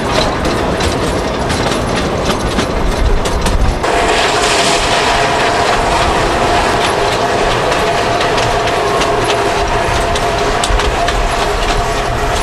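760 mm narrow-gauge forestry train running, its wheels clicking and clattering over the track. About four seconds in the sound changes and a steady hum joins the clatter.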